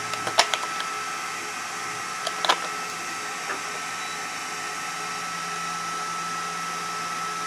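A few sharp plastic clicks, mainly about half a second and two and a half seconds in, as batteries are fitted into a handheld multimeter's battery compartment. Behind them runs a steady background noise with a constant thin high-pitched tone.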